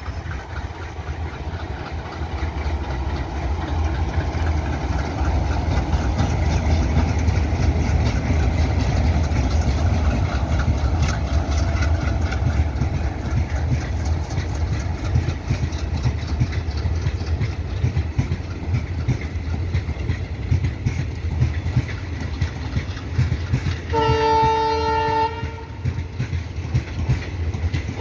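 Twin WDM3A Alco diesel locomotives chugging, a dense, rapid exhaust beat from their 16-cylinder engines that grows louder over the first several seconds and then holds steady. About 24 seconds in, a locomotive horn sounds one blast of over a second.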